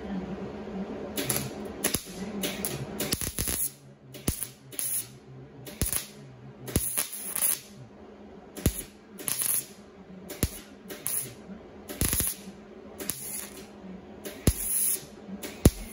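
MIG welder crackling in a run of short bursts, about one a second, tack-welding small holes shut in sheet-metal rocker panel. A steady hum runs under the first few seconds.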